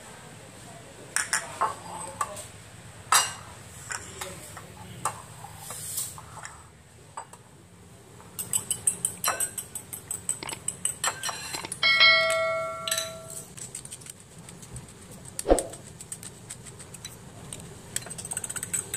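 Metal cutlery clinking against ceramic bowls while raw eggs are beaten: scattered taps, then a quick run of light taps, a clear ringing note about twelve seconds in, and a single knock a few seconds later.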